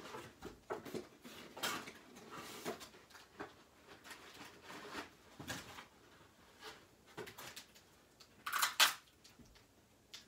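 Gift wrapping and packaging rustling and crinkling as a present is unwrapped by hand, with small knocks of items being handled and set down. A louder crinkling burst comes near the end.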